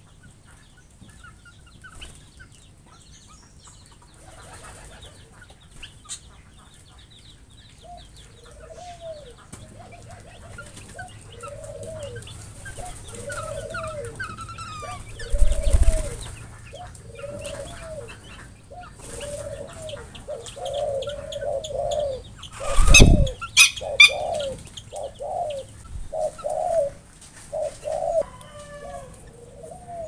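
Birds in an aviary: a bird gives a run of low, arched calls about once a second. The calls get louder and closer together toward the end, over faint high chirps from small birds. Two loud thumps break in, one about halfway through and one later.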